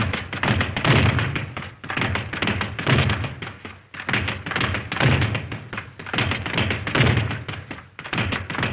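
Rapid tapping and thudding, dense and irregular, in short runs that break off and start again a few times.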